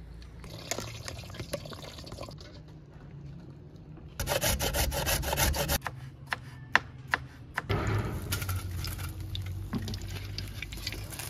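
Hot oil sizzling and crackling as pastries and spring rolls deep-fry in an iron pan, loudest about four seconds in, with a short run of sharp knife taps chopping on a wooden board in between.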